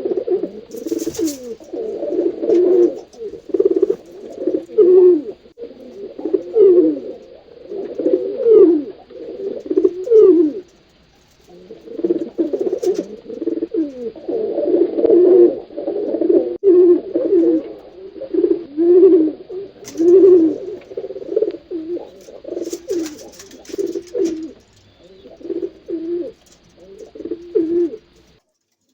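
Pigeons cooing: low, throaty coos one after another, overlapping almost without a break, with a short lull about a third of the way through. A few brief scratchy noises sound in among them.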